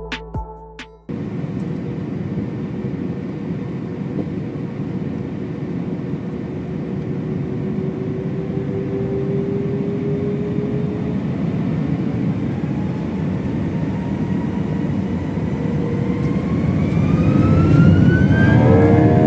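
Airbus A321 jet engines heard from inside the cabin: a steady roar with a whine that climbs in pitch and grows louder toward the end as the engines spool up, typical of thrust being applied for the takeoff roll.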